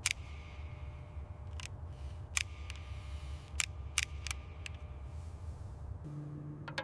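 Sharp clicks at irregular intervals, about six in all, over a steady low hum. The hum changes at a cut about six seconds in.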